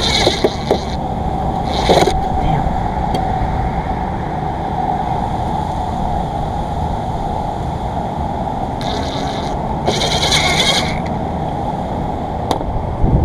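Wind noise buffeting the microphone, a steady low rush, with a few short, brighter noises: one at the start, one about two seconds in, and two close together around nine to eleven seconds.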